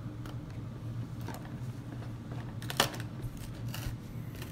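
Cardboard LEGO Star Wars advent calendar box being handled while its small door is pried open: a few scattered light scrapes and clicks, the sharpest about halfway through, over a steady low hum.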